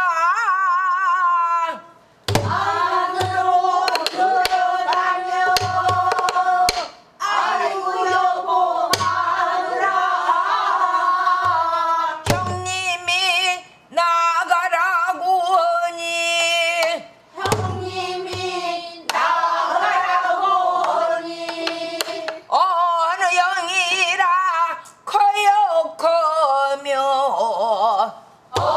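A woman sings pansori in long, wavering phrases with short pauses between them. Her own strokes on a buk barrel drum thump at the start of several phrases.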